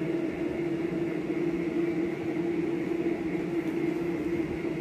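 Steady machine hum: one constant low tone over an even hiss, unchanging throughout.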